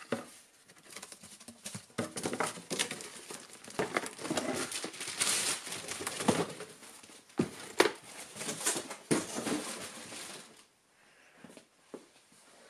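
Cardboard box being opened and a clear plastic bag rustling and crinkling as the contents are unwrapped, with scattered knocks of handling. The rustling stops about ten and a half seconds in.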